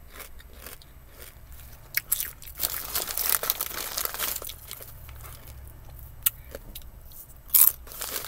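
Crunching and chewing chips, with the crinkly rustle of a chip bag as a hand reaches into it: louder rustling from about two seconds in, and a sharp crinkle near the end.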